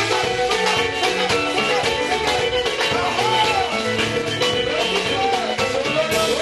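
Upbeat Congolese dance-band music with a steady beat, melodic instrument lines over bass.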